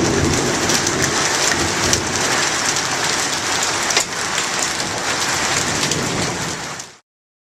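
Heavy rain pelting down, full of sharp individual hits. A low rumble of thunder dies away in the first second or so. The sound cuts off abruptly about seven seconds in.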